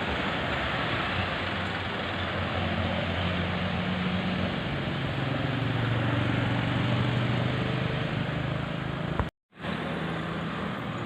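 Roadside traffic noise with a passing vehicle's low engine hum, which drops in pitch about five seconds in. The sound cuts out completely for a moment about nine seconds in.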